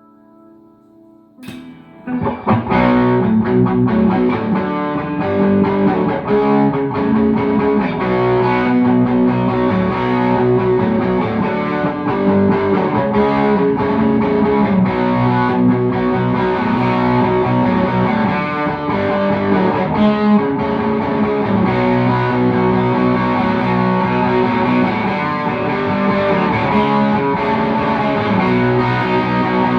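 G&L CLF Doheny V12 electric guitar played through an amplifier with a distorted tone: a faint held note, then a sharp pick attack about a second and a half in, followed by continuous chords and riffs.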